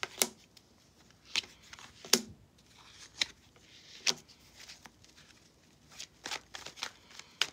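Tarot cards being handled and shuffled: a handful of separate, irregularly spaced sharp snaps and clicks of card stock, with quiet between them.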